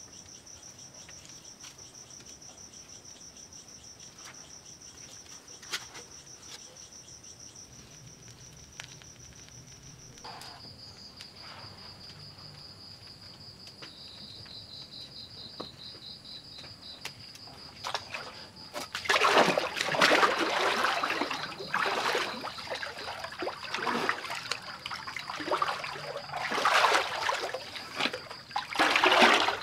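Crickets chirping in steady high trills, then, about two-thirds of the way in, loud irregular splashing of water in a small pool that goes on to the end.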